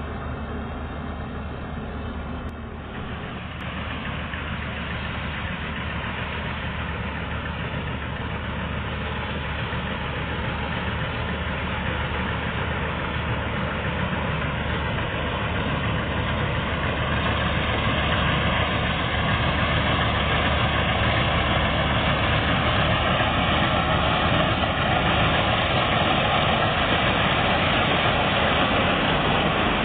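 Chardikala combine harvester running steadily, with a low engine hum under a dense mechanical din that grows gradually louder over the first fifteen seconds or so, then holds level.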